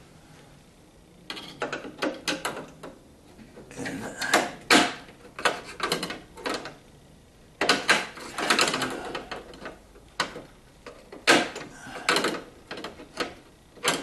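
Irregular clicks, knocks, rattles and scrapes of hand work on car trim: a screwdriver being picked up and a screw being started through the front grille vent into the parking-light bracket.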